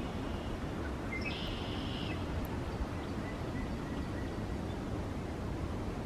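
Wind buffeting the microphone in a steady low rumble, with a short, high, trilling bird call about a second in.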